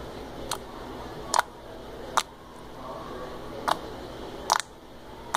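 Sticky slime being squeezed and stretched by hand, giving six sharp clicking pops about a second apart as trapped air bursts out of it.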